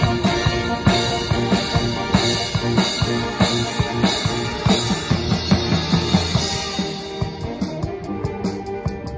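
A school wind band playing an upbeat piece: sustained wind chords over a drum kit keeping a steady beat, with other percussion joining in.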